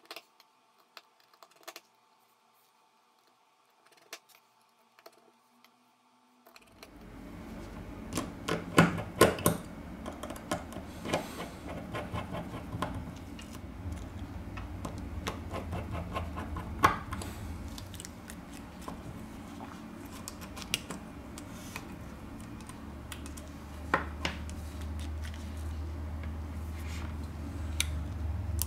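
Small sharp clicks and taps of a precision screwdriver and small metal parts on an iPod touch 4th-generation frame during reassembly, scattered and irregular. About seven seconds in, a steady low hum comes in under the clicks and carries on.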